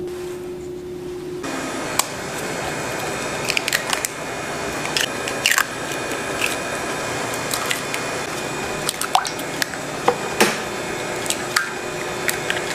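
Eggs being cracked one after another into a large stainless steel bowl: scattered sharp shell taps and wet splashes and drips as the eggs drop into the pooled eggs, starting about two seconds in.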